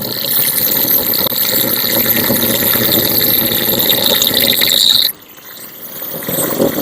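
Angle grinder cutting into a steel motorcycle exhaust muffler, a steady high whine over harsh grinding noise. It cuts off abruptly about five seconds in, and the noise builds again near the end.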